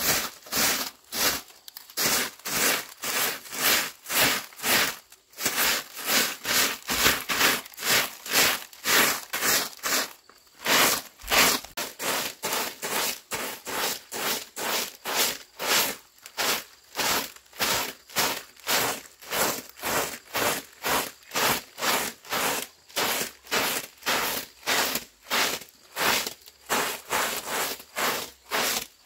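Soft grass broom sweeping packed dirt ground, brushing in quick, even strokes at about two a second.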